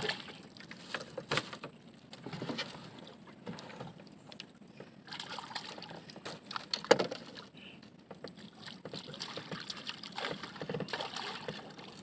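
Water sloshing and lapping around a small wooden outrigger fishing boat, with scattered knocks and clicks from the hull and the fishing tackle while a grouper is brought up to the surface. A sharper knock comes about seven seconds in.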